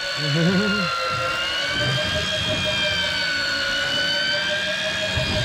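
Electric deep-drop fishing reel's motor whining steadily as it winds a hooked fish up from deep water, its pitch drifting slightly with the load.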